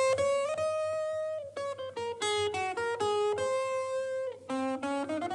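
Film-score background music: a single-line melody played on guitar, with some notes held and others short and plucked.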